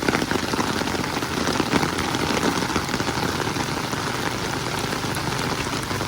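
Steady rain falling, a continuous hiss dense with small raindrop patters.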